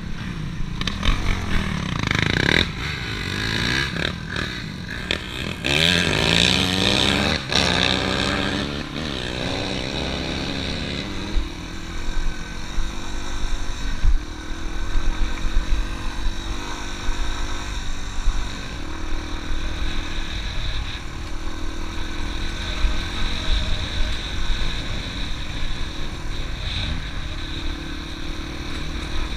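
Dirt bike engine running hard under riding load, its revs rising and falling repeatedly in the first ten seconds or so, then holding steadier.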